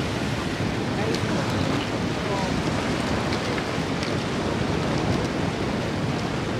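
Steady wind buffeting the microphone, mixed with the wash of the sea along the shore.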